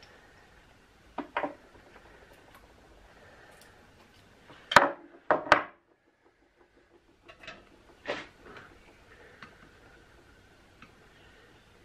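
Metal clinks and knocks from lead jig-head castings and tools being handled on a workbench: a pair about a second in, a louder quick run of three around five seconds, then a few lighter ones.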